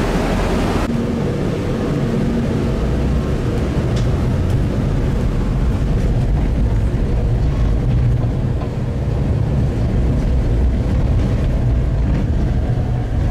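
Tatra tram running along the track: a steady low rumble of motors and wheels on the rails. A higher hiss drops away abruptly about a second in.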